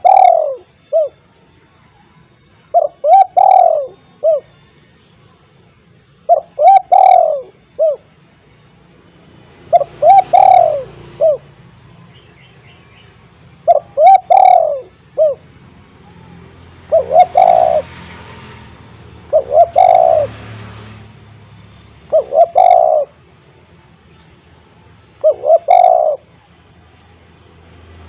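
Spotted dove (tekukur) cooing loudly and persistently, repeating its phrase of three or four short coos about every three seconds.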